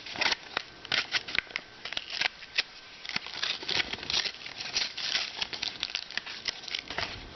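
Plastic blister packaging crackling and clicking as it is handled and pried open to get at the trading-card booster pack, in a quick irregular run of small sharp snaps.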